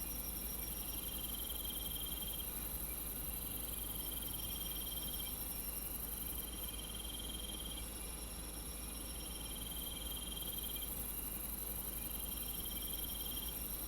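Night insect chorus of crickets chirping in trilled bursts of about a second and a half, repeating every two to three seconds, over a steady high-pitched insect drone.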